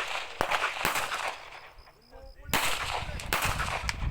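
Pistol shots fired in quick succession: two sharp cracks in the first second, a pause of about a second, then a second string of three or four shots.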